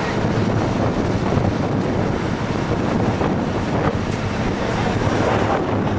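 Wind buffeting the microphone: a steady, loud rush of noise heaviest in the low end.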